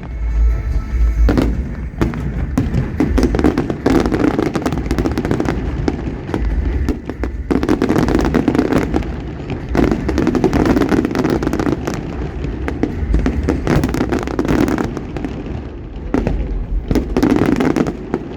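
Fireworks display going off: a dense run of sharp bangs and crackling over deep booms, coming in several waves.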